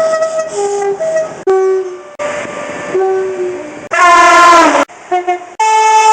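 British train two-tone air horns sounding a rapid series of blasts, alternating high and low notes. A very loud blast about four seconds in sags in pitch as it ends, and another loud high blast starts near the end.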